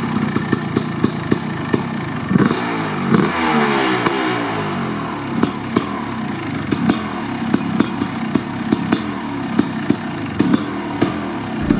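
1990 Kawasaki KX500's 500cc single-cylinder two-stroke engine, through an FMF Gnarly pipe and Pro Circuit silencer, running at idle with uneven popping a few times a second. It is revved up briefly about two to three seconds in and drops back to idle.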